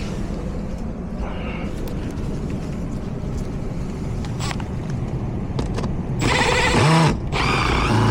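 Cordless drill running in two short bursts near the end, the first winding down in pitch as it stops, over a steady low rumble.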